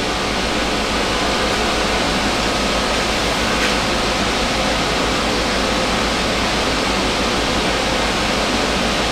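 Steady rush of air from the car capsule's inflation fan, which runs continuously to keep the bubble inflated.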